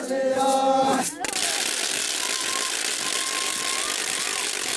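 A group of dancers' voices chanting together in held, pitched notes for about a second, cut off abruptly and replaced by a steady, loud hiss with faint thin tones under it.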